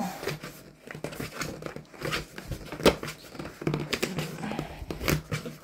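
Cardboard mailer being pried open by hand: scratching, rustling and tearing of the cardboard flap and its tacky glue strip, a string of short scrapes with one sharp snap about three seconds in.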